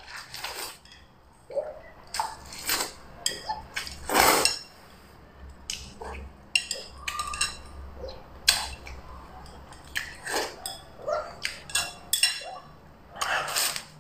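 Noodles being slurped and chewed from a bowl in a run of short, irregular slurps, with chopsticks clinking against the bowl.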